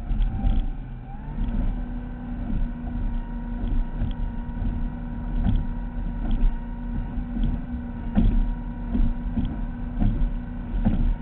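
Ultra Custom performance boat's engine running steadily under way, its pitch rising a little about a second in. Heavy wind rumble and irregular thumps go over the engine throughout.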